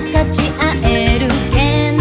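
Anime character pop song: a woman singing over a drum beat and band backing, with a strong bass note coming in about one and a half seconds in.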